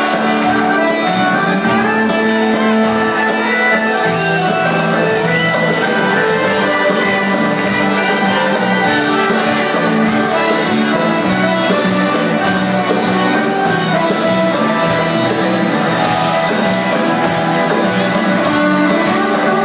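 A live band playing Greek popular music, with guitar prominent, heard from within a large hall, with shouts from the crowd.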